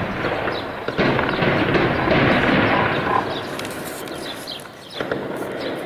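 Artillery fire: a heavy boom about a second in that rumbles and echoes on for about two seconds, and a weaker bang near the end.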